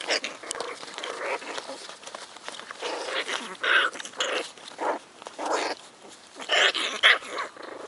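Four-week-old American Hairless Terrier puppies giving short yips and squeals at irregular intervals, the loudest a cluster near the end.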